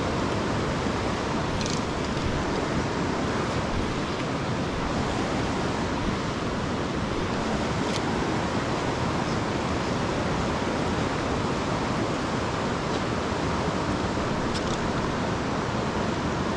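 Fast, shallow river rushing over a cobble riffle: a steady, even rush of water, with a few faint high ticks now and then.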